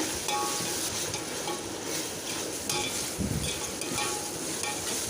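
Chopped tomatoes, onions and ginger-garlic paste sizzling in hot oil in a biryani pot, stirred with a spoon that scrapes now and then against the pot.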